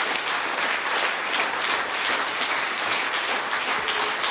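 Studio audience applauding, many hands clapping at once.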